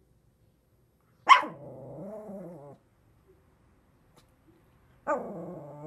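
A small fluffy dog barking sharply and drawing each bark out into a long, wavering whine-like vocalization, twice: about a second in and again near the end. It is a demand bark, begging for food.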